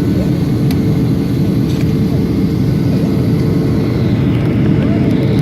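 Boeing 737-800 in flight: a steady, loud rumble of its engines and rushing air, with a constant hum underneath.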